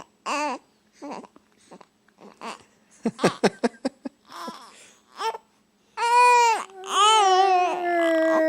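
Baby vocalising: short babbling and fussing sounds, then from about six seconds in two long cries, the second a drawn-out wail that slowly falls in pitch.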